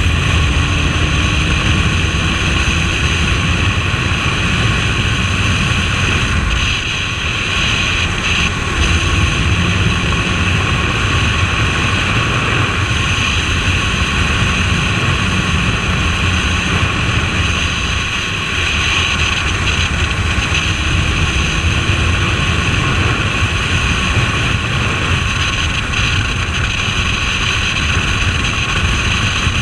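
Suzuki Bandit 1250S motorcycle being ridden on the road: steady wind rush and road noise over the running engine. The loudness dips briefly about seven seconds in and again around eighteen seconds.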